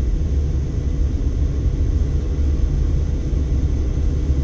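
Steady low rumble of a Mercedes-Benz car driving along a city street, heard from inside the cabin: tyre and road noise with engine hum, under a faint steady tone.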